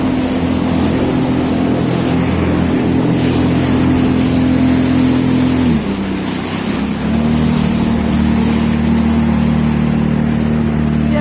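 Jet ski engine running steadily at speed. Its note drops briefly about six seconds in as the throttle eases, then picks up again.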